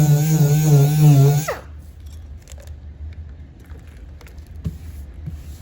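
Mirka pneumatic sander running with a steady pitch that wavers under hand pressure on the plastic, then released about a second and a half in: its pitch falls quickly as it spins down and stops. A few light handling clicks follow over a low hum.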